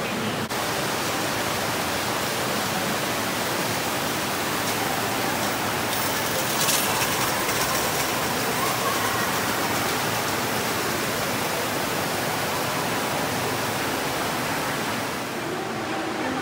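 Steady rushing noise inside a moving transit car, with a brief rattle about six to seven seconds in.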